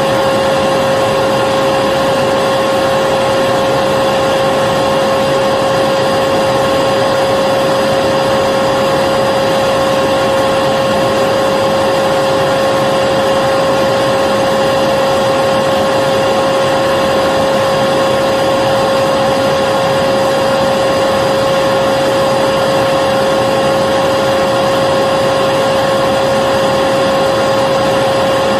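Vacuum cleaner running continuously at a steady pitch, a constant whine over a rushing hiss with no changes.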